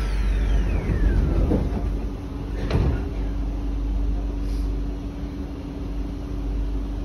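The sliding passenger doors of an SMRT C151A metro train close, shutting with a single knock about three seconds in. A falling whine comes first, and after the knock a steady low hum and rumble from the train carries on.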